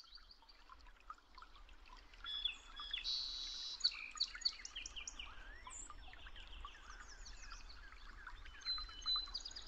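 Several birds chirping and calling, many short, quick chirps and sweeping notes overlapping, over a faint low background noise.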